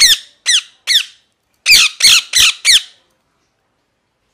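A parrot giving short, shrill calls, each falling in pitch: three spaced out, then four in quicker succession.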